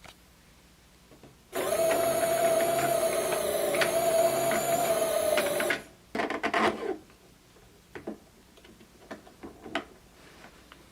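3D-printed plastic planetary gearset spinning with a steady mechanical whir for about four seconds, then a brief, uneven second spin and a few light clicks.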